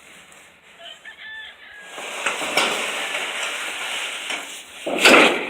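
Backyard chickens clucking and a rooster crowing, louder from about two seconds in, with the loudest call near the end.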